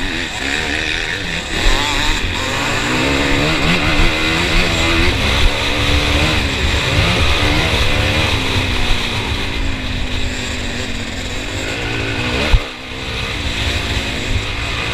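Motocross bike engine heard close up from the bike itself, revving up and down through the gears as it is ridden hard along the track. Near the end a sharp thump, after which the engine briefly drops off before picking up again.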